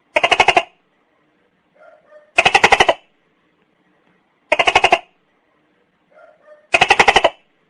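Tokay gecko calling: four calls about two seconds apart, each a quick run of about a dozen pulses lasting half a second, with a soft note just before each.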